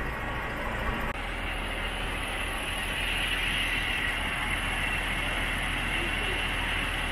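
Engine of the lifting crane running steadily, with a low hum and an even hiss over it; the tone shifts slightly about a second in.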